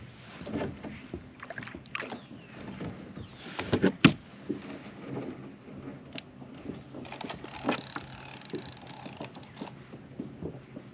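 Handling noise on a Nucanoe Frontier 12 fishing kayak: rod and gear knocking and clicking against the plastic hull, with one sharp knock about four seconds in.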